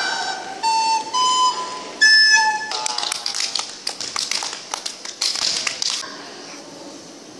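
A recorder playing a few single notes, the loudest a high note about two seconds in. From about three seconds, several people clap their hands quickly and irregularly, stopping about six seconds in.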